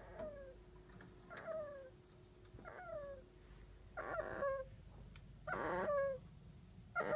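A kinkuma (golden Syrian hamster) snoring in its sleep: short, high, falling squeaky snores, one about every second and a half, six in all, growing louder.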